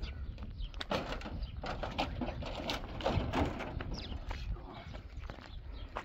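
A long wooden log dragged over stony ground, scraping and knocking irregularly against rocks and timber.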